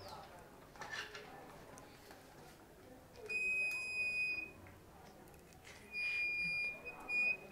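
A steady high-pitched electronic tone from a small handheld device, sounding for about a second and a half starting about three seconds in, then twice more in shorter spells near the end.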